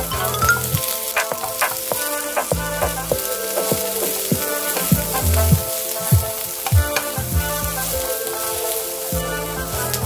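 Sausage pieces, onion and bell peppers sizzling in hot oil in a nonstick frying pan, with a spatula scraping and knocking against the pan at irregular intervals as they are stir-fried.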